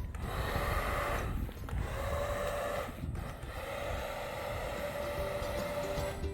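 Small battery-powered fan motor of a bubble machine gun whirring as it blows bubbles. It cuts out briefly twice, about a second and a half and three seconds in.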